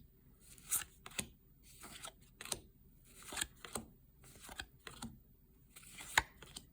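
1990 NHL Pro Set hockey cards being handled and flipped through: short, crisp flicks and slides of card stock at irregular intervals, every half second to a second or so.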